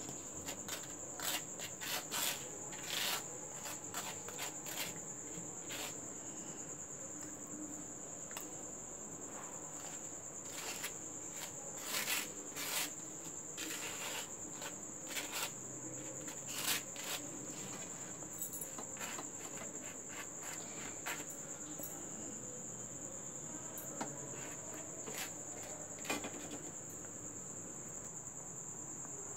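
A table knife scraping and tapping across slices of toast in short, irregular strokes as a spread is put on them. A steady high-pitched tone runs underneath.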